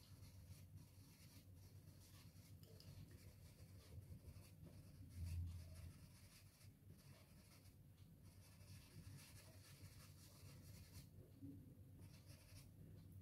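Faint, repeated strokes of a soft pastel stick rubbed back and forth on paper while shading. A brief low rumble comes about five seconds in.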